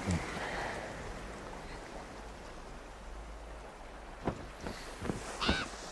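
Steady wash of sea and wind, with a bird giving a few short chirps near the end, the last one sliding up and back down in pitch.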